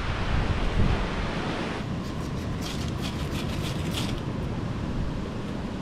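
Wind and surf rush steadily. About two seconds in, that gives way to a short run of light clicks and snaps as dry sticks are laid into a lava-rock fire pit.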